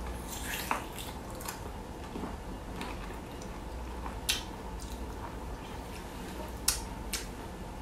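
Person biting into and chewing a piece of boiled bamboo shoot: a few short, wet clicks over a faint steady hum.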